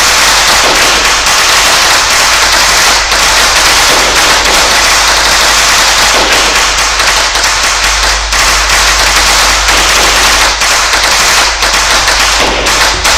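A long string of firecrackers going off in a loud, rapid, unbroken crackle.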